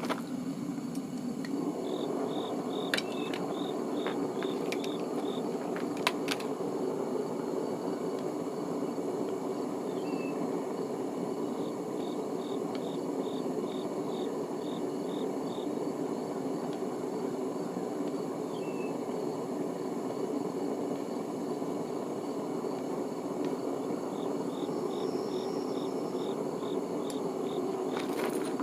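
Small smelting furnace running with a steady rushing noise while it heats. Three times an insect chirps in short trains of rapid high pulses over it, and there are a few light clicks.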